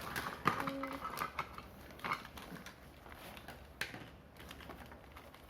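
Small plastic toy kitchen pieces being taken out and handled: scattered clicks and light knocks, busiest in the first second, with single sharper clicks around two and four seconds in. A brief pitched sound comes about half a second in.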